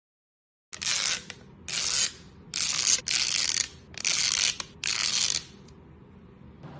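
Kinetic sand being pressed and squished, giving about six short crunchy, gritty rasps in quick succession after a moment of silence.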